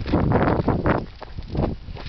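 Footsteps crunching on loose gravel in an uneven rhythm, with the scuffle of a shooter getting down onto a concrete platform.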